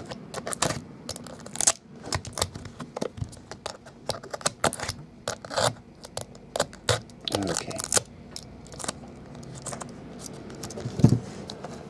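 Utility knife blade slicing and scraping along the tape seal of a cardboard card box, an uneven run of short scratches and ticks. A louder knock comes about eleven seconds in.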